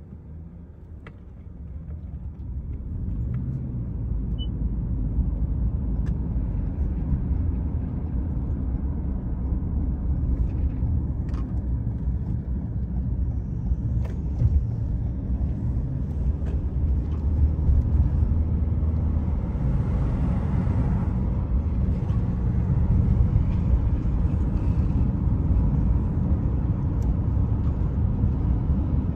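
Low rumble of a car driving, heard from inside the car, swelling as it gets under way about two seconds in, then steady road and engine noise.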